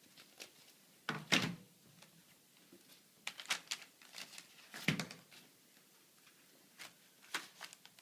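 Hard plastic parts knocking and clicking as membrane plates and lock rings are handled and pressed together while a plate-and-frame ultrafiltration module is assembled. There are several short sharp knocks, the loudest about a second in and about five seconds in.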